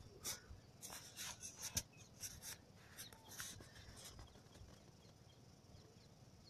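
Faint open-air ambience: a scattering of soft clicks and a few short chirps in the first four seconds, then a faint steady high hiss.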